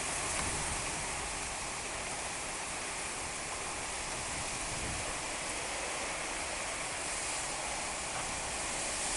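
Heavy rain pouring down in a strong wind storm: a steady, unbroken rush, with the wind buffeting the microphone in an unsteady low rumble.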